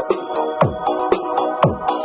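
Electronic dance remix played loud through a sound system under sound check. A kick drum hits about twice a second with a falling pitch, under sustained synth chords and a crisp hi-hat.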